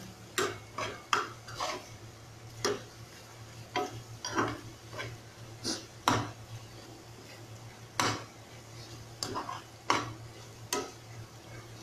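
A spoon stirring a thick sauce in a frying pan, scraping the pan and knocking against it in irregular clicks as the sauce is cooked down. A steady low hum runs underneath.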